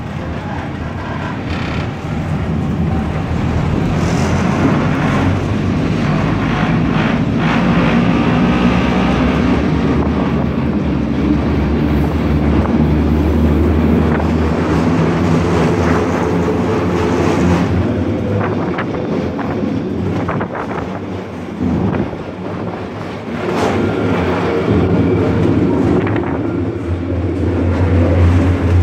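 Rorschach-Heiden-Bahn train heard from inside its open coach: a loud, steady running rumble of wheels on rails with a low electric hum, and a few sharp knocks along the way.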